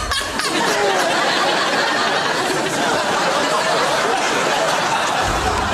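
Studio audience and panellists laughing and chattering all at once, many overlapping voices at a steady level.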